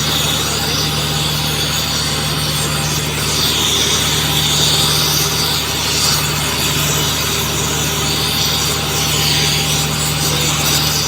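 Gas-and-oxygen cutting torch hissing steadily as it heats an asphalt joint, the hiss swelling and easing every second or two. A steady low hum runs underneath.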